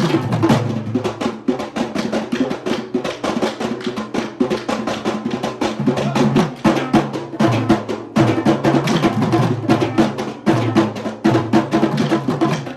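Sri Lankan drum ensemble of Kandyan drum, thammattama, daula and yak bera with a bass drum, playing loudly in a fast, dense rhythm. Rapid sharp strokes are layered over deep booms that come back every few seconds.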